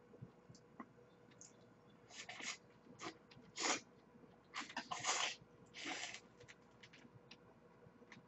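A person chewing a mouthful of grilled shrimp, with a run of short, sharp chewing and mouth sounds between about two and six seconds in.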